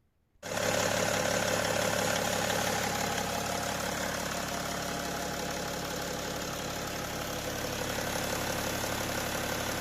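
BMW E60 car engine running at a steady idle, coming in abruptly about half a second in.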